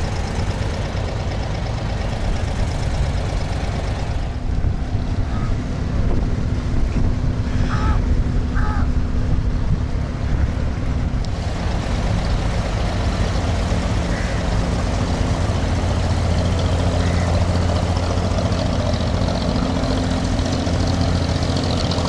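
Diesel engine of a wooden abra water taxi running with a steady low hum, a little stronger in the second half.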